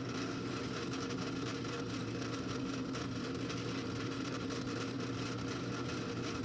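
Drill press running with a steady motor hum, its pitch and level holding even throughout.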